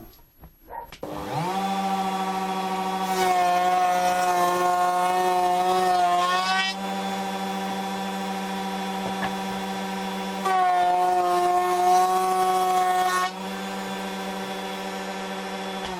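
Electric router with a half-round (roundover) bit starting up about a second in and running at a steady pitch. It grows louder twice for a few seconds each, as the bit cuts a rounded profile along the edge of a wooden strip. It is switched off right at the end and begins to wind down.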